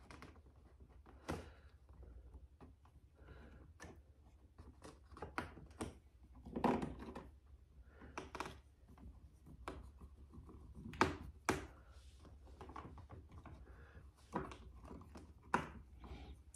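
Phillips screwdriver working a long screw through a light switch and a box extender into the electrical box: faint scattered clicks and scrapes, with a louder knock about seven seconds in and two sharp clicks about eleven seconds in.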